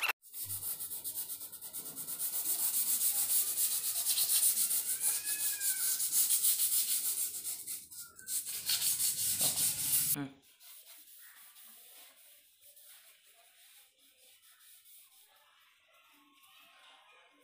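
Rapid back-and-forth hand sanding on a motorcycle's metal silencer, rubbing down the old black finish to prepare it for repainting. About ten seconds in it stops, and only faint cloth wiping follows.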